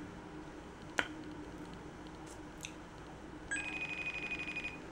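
A phone's outgoing-call tone: one steady electronic beep of just over a second, starting about three and a half seconds in, as a call is placed. A single light click about a second in.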